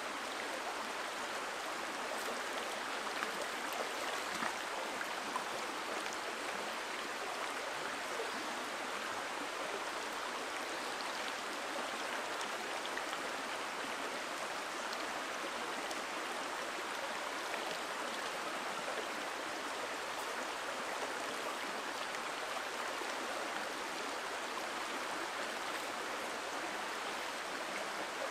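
A small wooded stream running over riffles, a steady rush of water.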